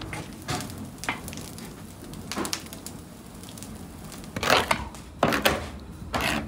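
A long metal rod and a shovel scraping at and breaking up the dried clay seal around a sealed tandoor's domed lid, to open it after cooking. It comes as several irregular gritty scrapes and crunches, the loudest about two-thirds of the way through.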